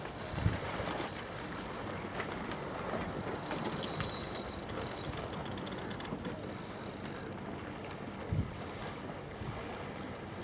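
Steady wind noise on the microphone over open water, with two brief low thumps, one just after the start and one about eight seconds in.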